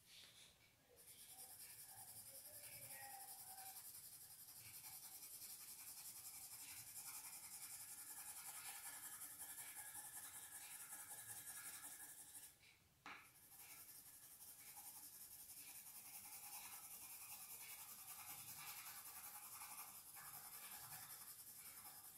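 Faint, steady scratching of a drawing tool on paper as short strokes are drawn, stopping briefly near the start and again about halfway through.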